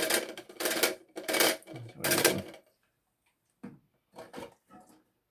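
Plastic clicking and clattering of a new toilet fill valve being handled and its height adjusted in the tank: several loud clatters in the first two and a half seconds, then a few fainter clicks.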